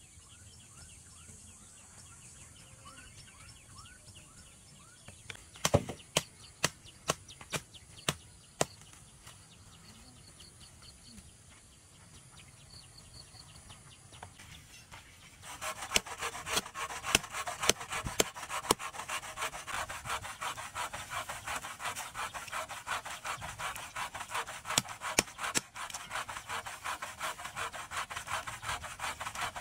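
Reed and grass stalks being handled, a dense run of fast scratchy rubbing and scraping strokes that starts about halfway through. Before that come a few sharp knocks and faint bird chirps.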